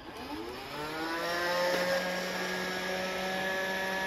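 A handheld cyclone vacuum cleaner switched on: its motor whines up in pitch over about a second and a half, then runs steadily.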